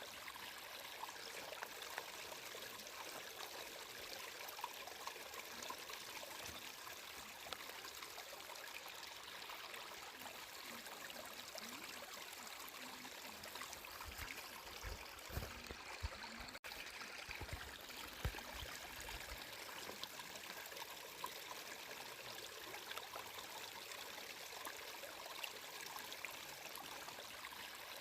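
Water flowing steadily, a continuous trickling hiss. About halfway through there are a few seconds of low rumbling, with a momentary cut-out in the middle of it.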